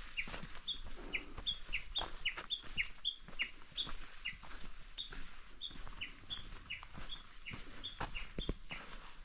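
A songbird repeating a two-note phrase over and over: a short high note, then a lower note that falls, about two phrases a second. Light footsteps knock underneath.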